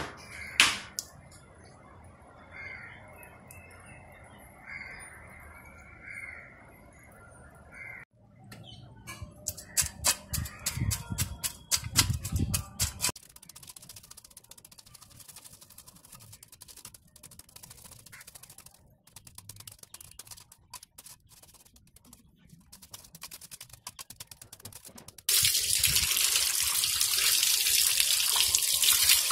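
A run of sharp knocks, then a cleaver scraping the scales off a murrel (snakehead) fish in rapid strokes. About 25 seconds in, water from a tap starts gushing loudly over the fish as it is rinsed.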